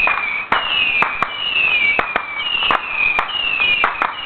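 Ground firework spewing whistling pieces: a rapid string of short whistles, each falling slightly in pitch, mixed with sharp cracks about two or three times a second.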